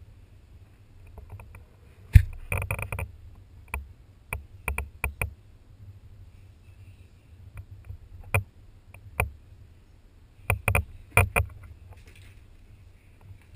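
Irregular sharp taps and knocks on a GoPro camera's housing as a cat bats it with a paw, coming in quick clusters with the loudest strike about two seconds in. Under them is a low rumble from the camera being handled on its stick.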